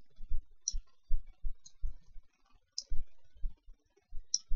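Computer mouse button clicks, four short sharp ones a second or so apart, with soft low knocks from the mouse and desk in between.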